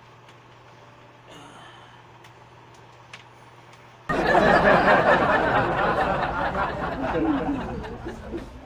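A man's loud, breathy chuckling that starts suddenly about four seconds in and trails off over the next few seconds, after a quiet stretch with a faint steady hum.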